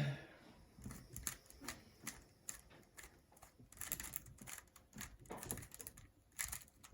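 A 3x3 Rubik's cube being turned quickly during a speedsolve: rapid, irregular plastic clicks coming in short bursts. A brief voice-like sound right at the start is the loudest thing.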